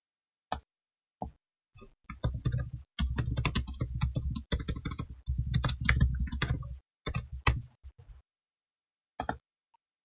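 Typing on a computer keyboard: a few separate clicks, then a quick run of keystrokes lasting about five seconds, and a few more clicks near the end.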